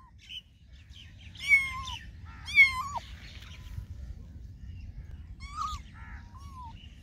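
Kittens meowing: two loud, high meows about a second and a half and two and a half seconds in, then two fainter ones near the end, over a steady low rumble.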